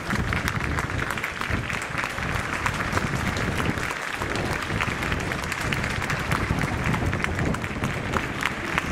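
Stadium crowd applauding, many hands clapping steadily.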